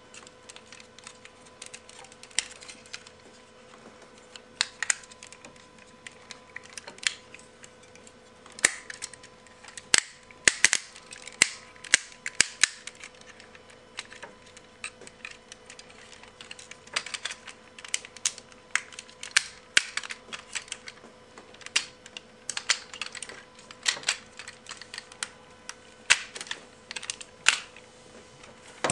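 Transformers G1 Sixshot toy being handled and transformed: its parts and joints click and clack irregularly throughout, with a denser, louder run of clicks about ten to thirteen seconds in.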